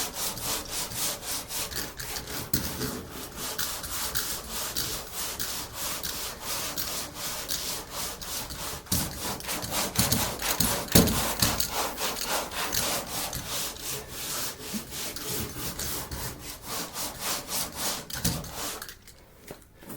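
Body filler on a car door being sanded by hand with 40-grit paper while the filler is still half-cured and a little wet on the surface. The paper rasps in quick, rhythmic back-and-forth strokes, a couple to a few a second, and stops about a second before the end.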